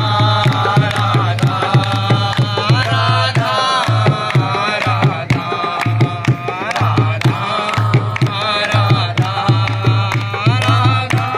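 A man singing a Hindu devotional chant to a two-headed barrel drum played with the hands, with the group clapping along in time. The drum gives a steady pattern of deep strokes under the voice.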